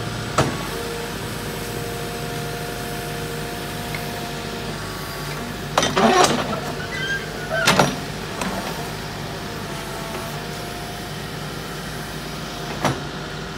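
Diesel engine of a Case backhoe loader running steadily while its rear bucket digs. There is a sharp knock about half a second in, a cluster of scraping knocks around six seconds, another knock just before eight seconds, and a last one near the end.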